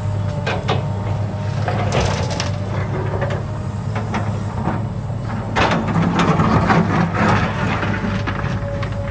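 Excavator's diesel engine running steadily under load, with irregular knocks and scraping crunches of the bucket working soil and rock; the clatter grows louder about halfway through.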